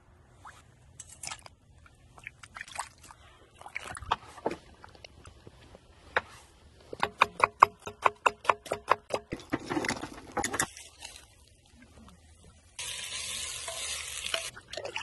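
A knife chopping an onion on a wooden cutting board in a quick, even run of about a dozen strokes. Near the end comes about two seconds of steady sizzling as onions are stirred with a wooden spatula in a hot clay pot.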